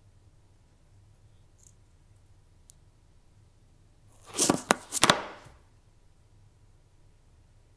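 Quick burst of several sharp clicks from laptop keys being tapped, about four and a half seconds in, over a low room hum.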